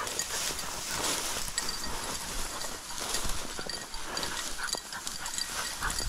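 Tall, dry grass and goldenrod stalks rustling and crackling as they are pushed through on foot, with irregular footfalls and stems snapping against legs and clothing.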